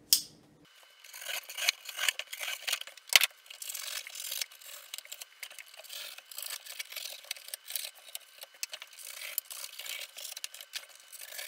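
A knife sawing through corrugated cardboard: an uneven scratchy, crackling rasp with small clicks and one sharp click about three seconds in, as vents are cut into the box.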